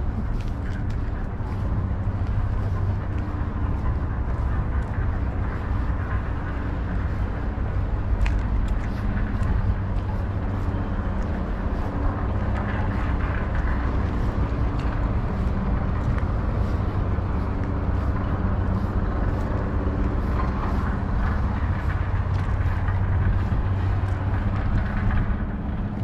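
A steady engine drone, like a motor vehicle running, over a continuous low rumble.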